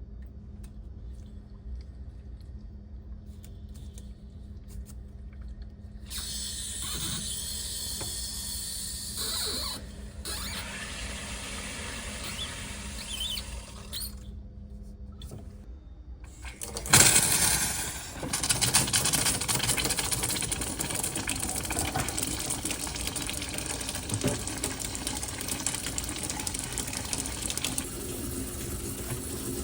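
Water hissing and rushing through a sink supply line and tap, with a hissing squeal. It starts in loud suddenly about 17 seconds in and keeps running.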